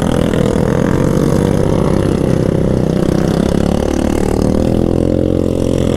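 Quad bike (ATV) engine running, its pitch wavering a little up and down as it idles and is lightly revved.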